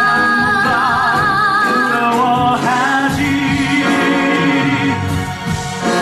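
Musical-theatre singing over band accompaniment: a woman holds a long high note with vibrato, then after about two seconds the voices move to new notes and hold them together, one part lower than the other.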